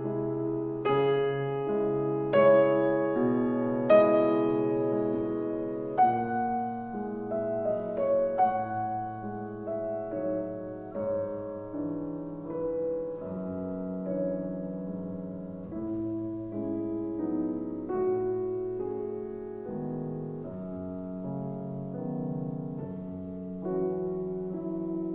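Classical music played on grand piano: a few loud, struck chords in the first six seconds, then softer sustained playing for the rest.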